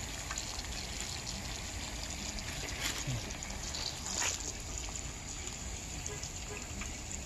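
Battered red perilla leaves sizzling steadily in hot deep-frying oil, with a couple of short clicks about three and four seconds in.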